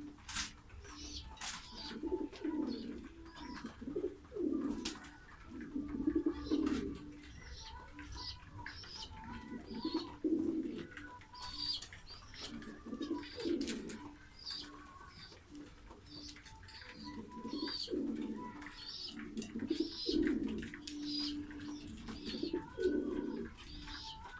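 Pigeons cooing over and over, low rolling coos every second or two, with short high chirps from smaller birds and a few sharp clicks among them.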